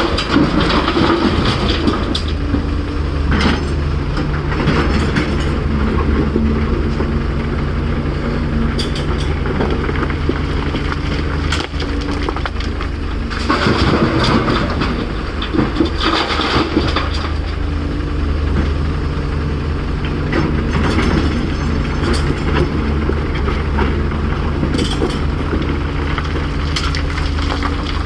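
Heavy excavator's diesel engine running steadily under load, with repeated clanks and scraping as rock and dirt are dug and dumped.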